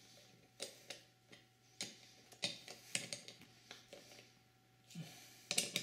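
Faint, irregular metal clicks of a socket bit on a screwdriver handle being turned to drive a bolt home, about a dozen ticks with a louder cluster near the end.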